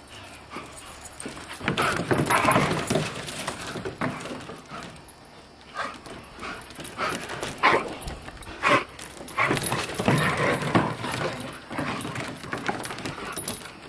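Three dogs play-fighting on a wooden deck: paws scrabbling and clattering on the boards amid irregular bursts of scuffling, loudest about two seconds in and again around ten seconds.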